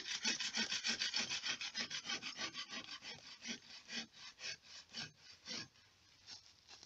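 Hand bow saw cutting into a wooden branch stub on a tree, in quick rasping back-and-forth strokes of about four a second. The strokes grow weaker and more spaced out after about three seconds and stop near the end.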